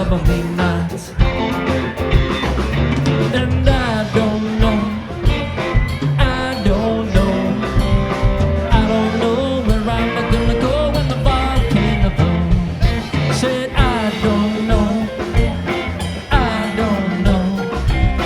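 Live rock band playing with drums, bass, electric guitars and keyboard in an instrumental stretch, a lead line bending up and down in pitch over the steady groove.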